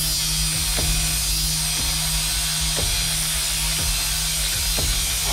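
Angle grinder with a cut-off disc running steadily through a steel bar, under background music with a deep drone and a drum beat about once a second.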